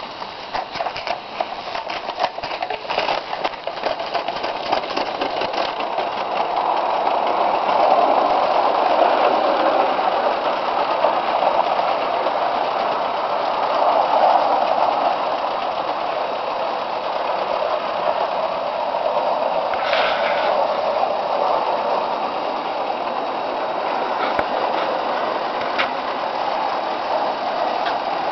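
Mamod live-steam locomotive with oscillating cylinders working under steam while hauling a heavy load of about 9 kg (20 lb). For the first several seconds a quick run of sharp clicks over the steam as it slips its wheels trying to get the train moving, then a steadier, louder running noise as it gets under way.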